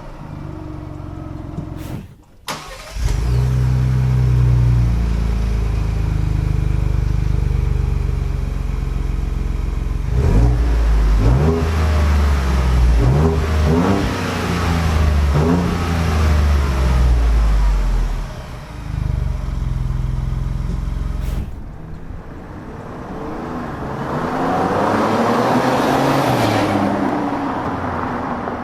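2.7L twin-turbo V6 of a Ford Bronco running through a Magnaflow Overland cat-back exhaust. It runs steadily at first, then is revved several times in quick succession, and near the end the exhaust note swells and fades again, with a couple of abrupt cuts between clips.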